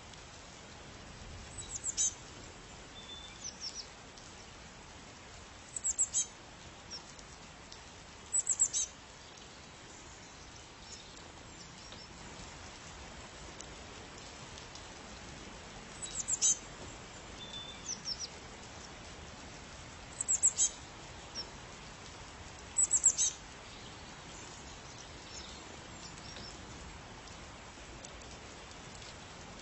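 A small bird calling: groups of three or four quick, very high chirps every few seconds, with softer single notes between, over a faint steady background hiss.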